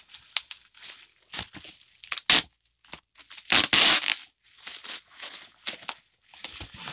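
Bubble wrap being pulled and crinkled by hand around a cardboard box, in irregular rustling bursts, with a louder ripping sound a little past halfway.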